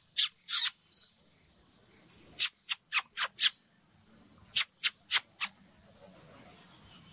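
A bird calling in quick runs of sharp, high, downward-sweeping notes: one run of three, then two runs of four or five notes each, with a faint steady high drone behind.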